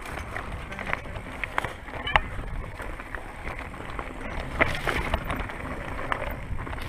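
Mountain bike moving over a rocky trail: a steady low rumble with scattered clicks and knocks from stones and the bike.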